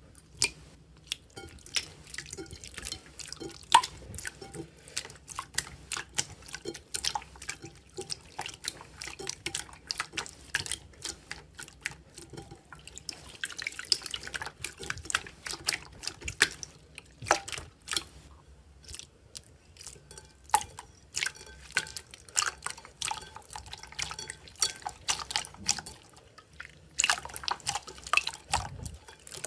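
Slime being squeezed and pressed by hand: an irregular run of wet, sticky clicks and pops, thickening into denser crackling about halfway through and again near the end.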